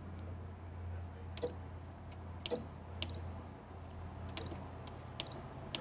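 Janome 3160 computerized sewing machine's keypad beeping as its stitch-selection keys are pressed: about five or six short, high single-pitch beeps at irregular intervals of roughly a second, over a faint steady hum.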